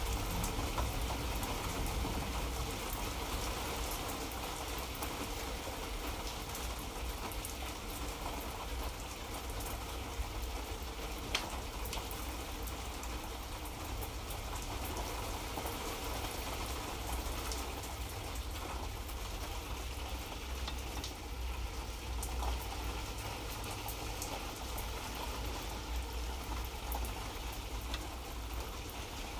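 Light rain falling steadily: an even hiss of drops with scattered sharper drop ticks, over a low rumble underneath.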